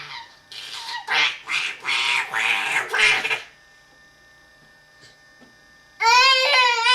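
Baby girl making rasping, duck-like monster sounds: a run of about six rough, hoarse vocal bursts, then after a pause a high-pitched squeal near the end. Her voice is strained from long screeching, which her mother says is hurting her throat.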